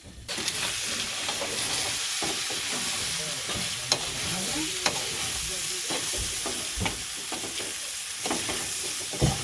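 Cooked rice and minced chicken frying in a hot pan for wachipa, a steady sizzle that starts suddenly as the rice goes in. The mix is being stirred, with a few sharp clicks of the ladle against the pan.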